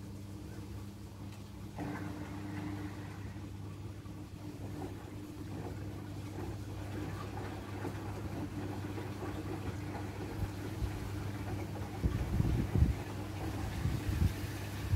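Two front-loading washing machines, an AEG Öko-Lavamat and a Whirlpool FSCR70420, running their rinse cycles, drums turning and tumbling wet laundry with a steady motor hum. A few low thumps come in the last few seconds.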